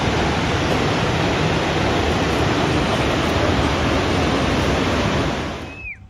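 Steady, loud rush of a tall waterfall pouring into its pool, fading out just before the end. A brief falling whistle sounds as it fades.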